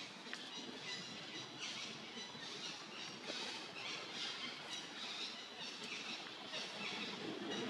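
Forest ambience: high-pitched chirping that repeats every second or so over a steady background hiss.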